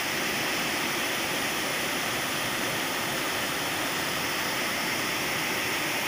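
Water pouring over a low weir into a river pool: a steady, unbroken rushing.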